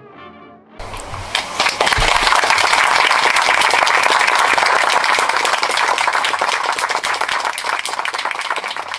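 Brass music fading out, then an audience bursting into applause about a second in, many hands clapping steadily, thinning out near the end.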